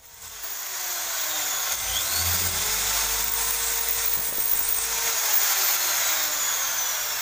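Hand-held corded electric drill boring into a painted wall. It spins up in the first second, then runs continuously, its motor whine sliding up and down in pitch as the bit bites.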